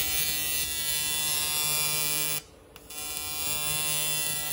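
TIG welding arc buzzing steadily as a mounting tab is welded onto the fuel-cell cage tubing. The arc cuts out about two and a half seconds in and strikes again half a second later.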